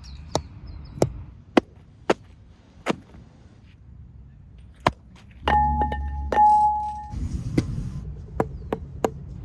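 A series of single sharp knocks, about one every half second to a second, with a clear ringing tone held for about a second and a half just past the middle.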